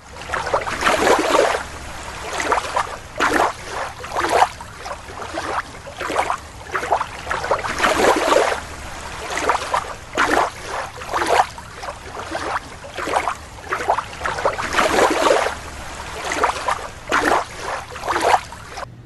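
Water in a toy aquarium splashing and sloshing in repeated, irregular splashes, about one or two a second, as a toy blowfish is moved about in it.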